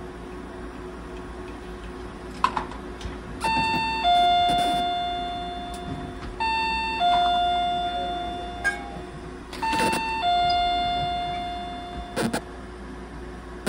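Two-tone electronic ding-dong chime, a short high note followed by a lower note that rings out slowly, sounding three times about three seconds apart over a steady low hum.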